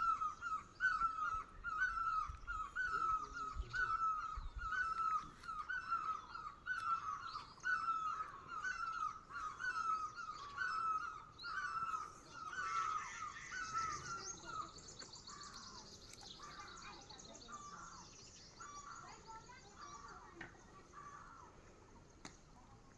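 A bird calling over and over, about two notes a second, each a short bending note. About two-thirds of the way through the calling stops and softer, higher chirping and chattering from other birds carries on, fading toward the end.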